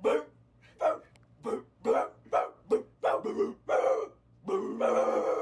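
A dog barking repeatedly, about two barks a second, ending in one longer, drawn-out bark.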